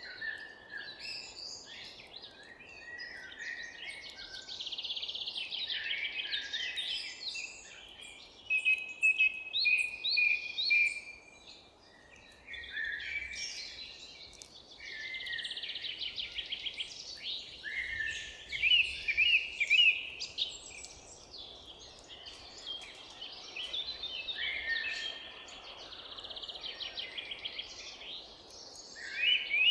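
A chorus of forest songbirds, several birds singing over one another with chirps, trills and fast runs of repeated notes. A faint steady hiss lies beneath.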